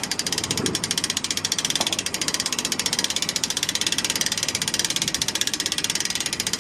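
A ratchet clicking rapidly and evenly, about ten clicks a second without a break, as the jet ski is tightened down on its trailer.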